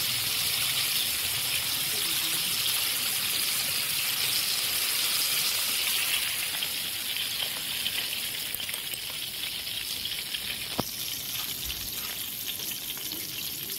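Hot oil in a wok sizzling steadily around battered chicken pieces as they deep-fry, easing somewhat after about six seconds as the browned pieces are lifted out in a wire strainer. A light tap about eleven seconds in.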